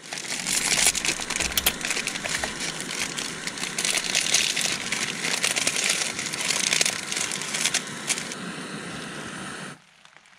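Rain pattering densely on the fabric of a small tent, a close, steady hiss full of tiny ticks, cutting off suddenly near the end.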